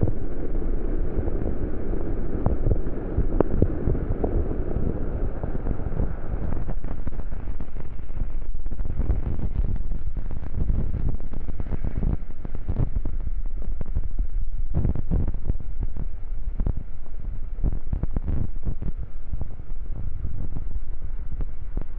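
Muddy floodwater rushing past in a torrent, a loud steady noise heaviest in the low end, with wind buffeting the phone's microphone. From about eight seconds in, many short sharp knocks break through the rush.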